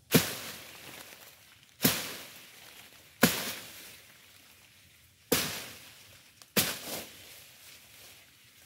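A hand blade swung into weeds, chopping them down: five sharp cuts at an uneven pace of roughly one every one and a half seconds, each trailing off briefly.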